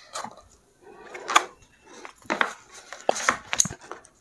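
Pages of a thick printed book being flipped through by hand: a quick series of about five crisp paper flicks with light rustling between them.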